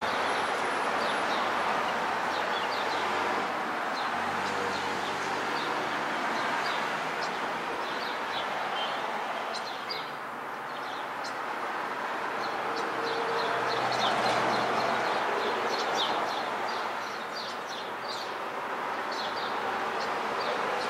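Two European starlings giving many short, high squeaky chirps in clusters, over a steady hum of street traffic.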